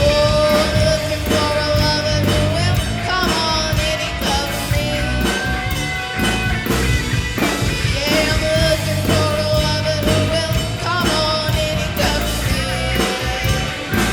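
Youth rock band playing live: drums, bass and electric guitars, over which a held lead note bends up and down.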